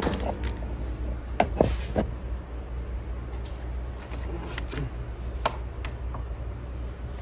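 Plastic trim piece being cut and handled: a few sharp clicks and snaps, loudest in a cluster about one and a half to two seconds in and again around five seconds in, over a steady low hum.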